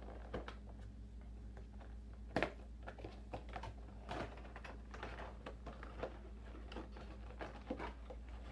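Irregular small clicks, taps and rustles of a boxed bobblehead and its packaging being handled, with one louder knock about two and a half seconds in.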